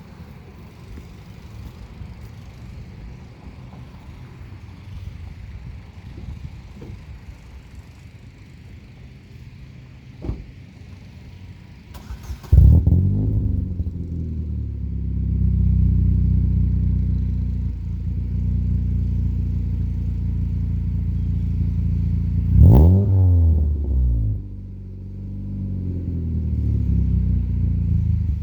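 Supercharged Chevrolet Cobalt SS 2.0-litre four-cylinder, on a catless 3-inch midpipe and Vibrant muffler exhaust, starting up about twelve seconds in with a rising flare, then idling with a deep, steady exhaust note. About ten seconds after the start the throttle is blipped once in a quick rev that rises and falls back to idle.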